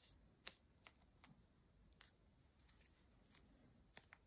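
Near silence with a few faint, scattered ticks and rustles of fingers pressing and handling a small stack of glued paper pieces.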